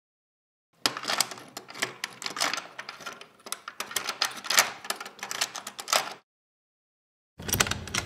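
A key being inserted and turned in a door lock: about five seconds of rapid metallic clicking and rattling of the key in the lock cylinder. Near the end, a large door handle is worked in a short burst of clunks and rattles.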